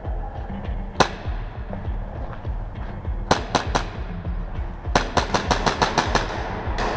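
Airsoft gunfire, sharp cracks: a single shot about a second in, three quick shots a few seconds in, then a rapid string of about eight shots in roughly a second, and one more near the end.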